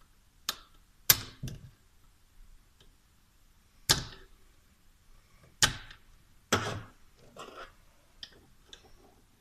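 Sharp metal clicks and clinks of needle-nose pliers working the actuator linkage on a Toyota Hilux D4D turbocharger while freeing the actuator: about six separate knocks, with a few lighter clicks near the end.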